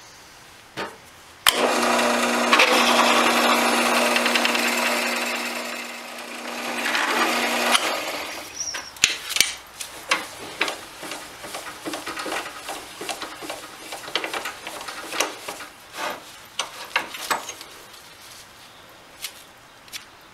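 Drill press running with a letter-S reamer cutting through a 4130 chrome-moly steel tube: a steady motor hum with grinding metal-cutting noise for about six seconds, easing off once and then stopping suddenly. A run of irregular clicks and knocks follows as the metal tube and tooling are handled.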